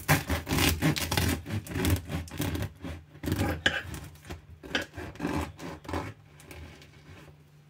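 Bread knife sawing back and forth through a crusty wheat sourdough loaf: a quick run of crunchy, rasping strokes as the still-crisp crust crackles, tailing off over the last second.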